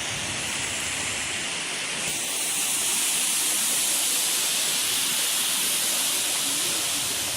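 Waterfall rushing: a steady wash of falling water that grows louder about two seconds in.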